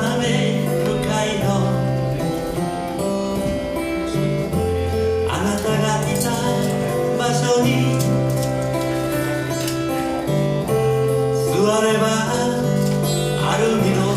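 Live song: a singer with plucked-string accompaniment and held bass notes, sung phrases coming and going over the steady chords.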